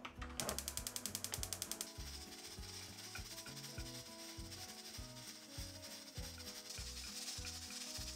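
A fast run of ratcheting clicks, about thirteen a second, for roughly a second and a half, then a steady hiss for the rest, over soft background music.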